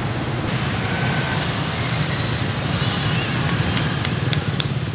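Steady city road traffic: many motorbikes and cars passing, a constant hum of engines and tyres.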